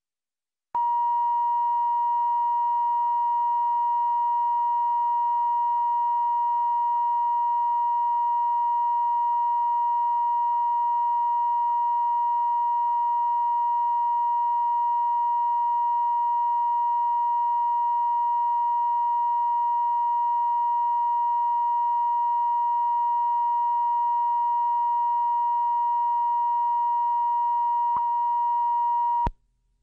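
Steady reference test tone at the head of a videotape, played with the colour bars to line up audio levels: one unchanging pure pitch that cuts off abruptly near the end, with a brief click just before.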